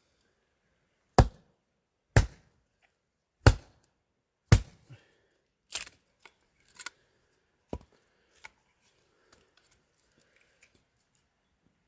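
Firewood being broken up for a small fire: a run of sharp woody cracks about once a second, the first four loud, then weaker ones that thin out to faint ticks.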